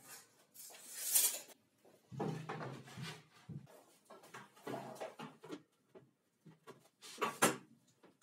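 Workshop handling sounds: a tape measure, a laminated board and clamps being moved about on a workbench top, a series of scrapes and knocks with the loudest one near the end.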